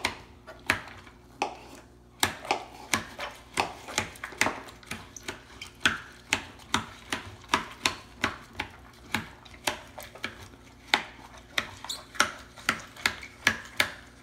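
Kitchen knife dicing tomatoes on a plastic cutting board: quick, sharp knocks of the blade on the board, about two or three a second, with a pause of about a second near the start.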